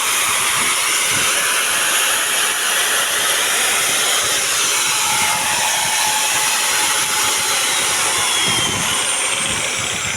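A 9-inch H.C.C heavy-duty angle grinder runs at full speed with no load, a loud steady high-pitched whine and rush. Near the end its pitch starts to fall, as if it is winding down.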